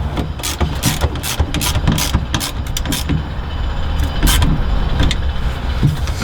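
A ratchet clicking in quick strokes, several a second for about three seconds, with one more click about four seconds in, over a steady low rumble.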